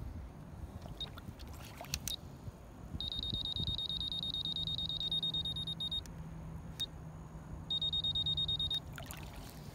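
Futaba radio transmitter beeping rapidly in two runs of high beeps, the first about three seconds long and the second about a second, with a few sharp clicks and a faint low hum beneath.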